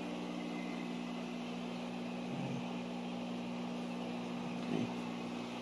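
Steady electrical hum of aquarium air pumps, a few even low tones, over a soft hiss of air bubbling through the tanks' sponge filters.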